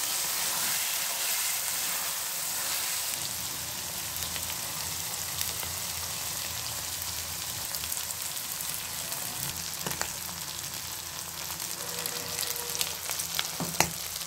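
Goat tripe sizzling as it fries in oil in a karahi, the added water having cooked off so it is now frying dry. A steady hiss with a few sharp clicks in the last few seconds.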